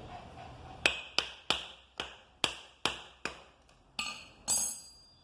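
Screwdriver tapping on the metal housing of a Bosch starter motor, about seven sharp taps a little under three a second, to loosen the housing so the starter can be opened. Near the end come two brighter metallic clinks with a ringing tone.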